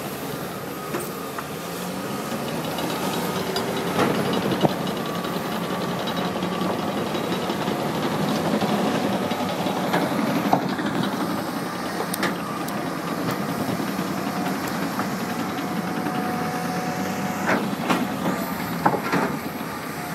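Heavy diesel earthmoving machinery working: a crawler dozer, then a John Deere hydraulic excavator digging. Its engine drones steadily, with sharp metallic clanks from the bucket and steel tracks every few seconds.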